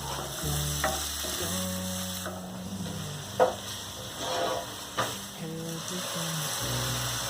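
Food sizzling as it fries in a pan, with stirring and a few sharp clinks of the utensil against the pan, the loudest about halfway through. Soft background music plays underneath.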